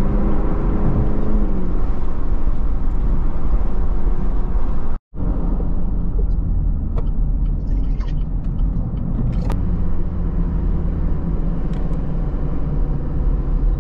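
Car engine and tyre/road rumble heard from inside the cabin while driving, the engine note falling in pitch over the first couple of seconds as the car slows. The sound cuts out completely for a moment about five seconds in, then steady driving rumble resumes.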